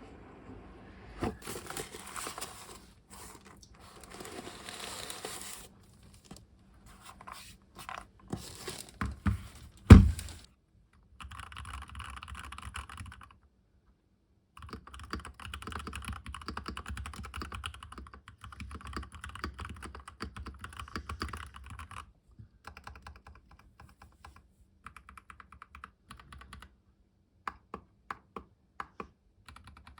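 Typing on a Keychron V2 mechanical keyboard with tactile brown switches: runs of fast keystrokes broken by pauses, thinning to separate single key presses in the last third. One heavy thump about a third of the way in is much louder than the keys.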